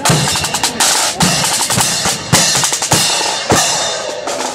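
Marching band drums playing a steady beat: bass drum and snare drums with crashing cymbals.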